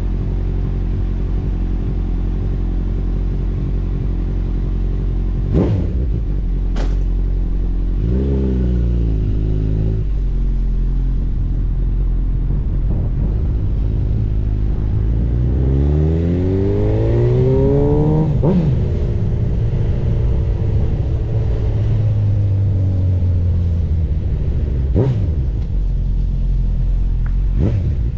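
Honda CB1000R's inline-four engine running, with a brief rev up and down about eight seconds in, then a pitch that climbs steadily for about three seconds before dropping off sharply. A few sharp clicks sound over it.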